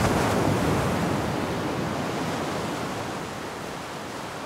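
Ocean surf breaking on a sandy beach: a wash of noise, loudest at the start and slowly fading.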